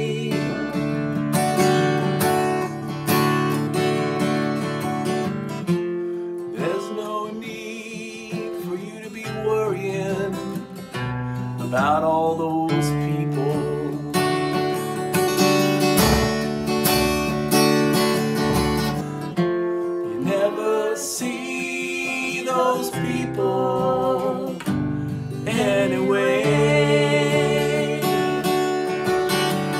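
Acoustic guitar strummed while a man and a woman sing together.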